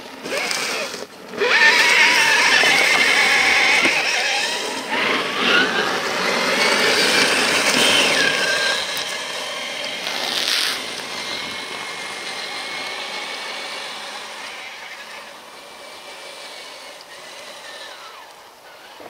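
Traxxas TRX-4 RC crawler's electric motor and geared drivetrain whining, the pitch rising and falling with the throttle. It fades away over the second half as the truck drives off up the trail.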